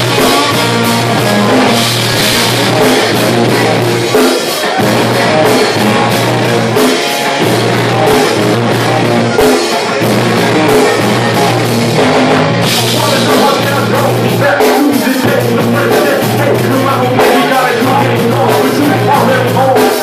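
Rock band playing live, with drum kit and a repeating bass line, loud throughout.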